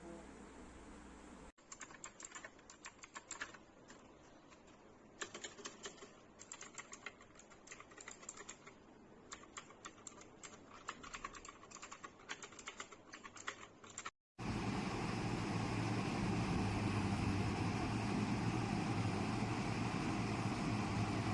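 Fast typing on an Armaggeddon MKA 7C mechanical keyboard with clicky blue switches, a dense run of keystroke clicks lasting about twelve seconds. After a sudden cut, a louder steady noise with a low rumble takes over for the last seven seconds.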